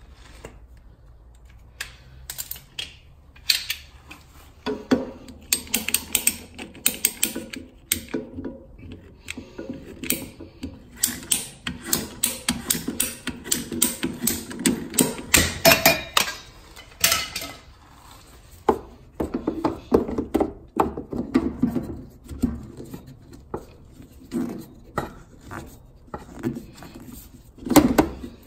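Hand pipe cutter working through 25 mm multilayer (MLCP) plastic-aluminium pipe: many sharp clicks from the cutter's handle and blade, with a rubbing sound as it bites. Near the end the edge-cleaning tool is turned in the cut pipe end with a louder knock.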